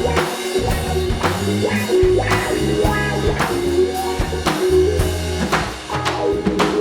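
Live funk-rock band playing an instrumental passage: electric guitar, bass guitar and drum kit, with a steady beat and held bass notes.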